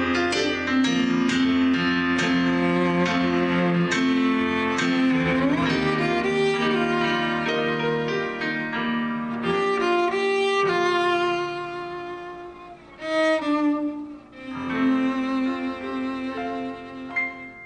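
Cello and piano playing together, a bowed melody over piano. The playing grows quieter in the second half, with two last swells, and stops just at the end: the close of a piece.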